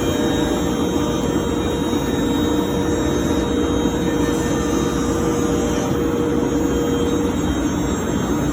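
CNC router spindle running and cutting dados into a wooden door jamb head: a steady machining noise with a high whine. The whine drops out about seven seconds in while the machine noise carries on.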